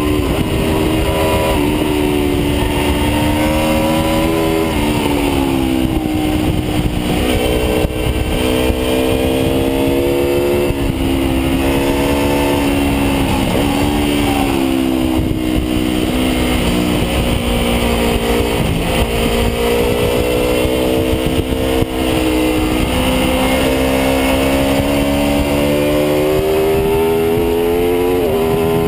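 Aprilia RSV4 V4 engine heard from the rider's seat at high road speed. Its note falls and rises with the throttle, then climbs steadily through the second half and drops near the end. A steady wind rush runs beneath it.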